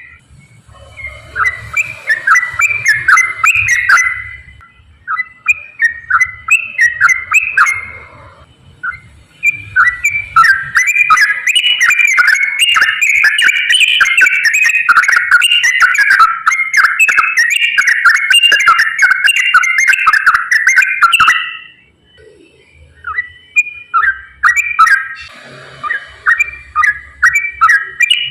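Yellow-vented bulbul (trucukan) singing in a rapid, non-stop chatter of bubbly whistled notes, the fast 'ropel' style. The song comes in bursts with short pauses, and the longest run lasts about eleven seconds.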